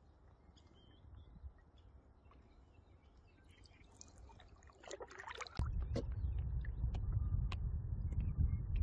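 A canoe being paddled on a lake: faint paddle strokes and water swishing. A little past halfway the sound jumps suddenly to a loud, low rushing rumble of wind and water against the moving canoe.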